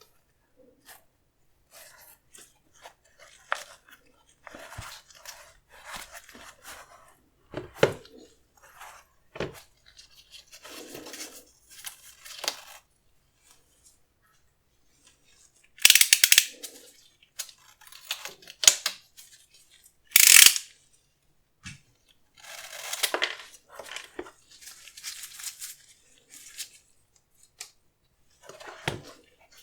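Sneaker packaging being handled by hand: short bouts of crinkling, rustling and tearing, with two louder crinkling bursts about halfway through and a few seconds later.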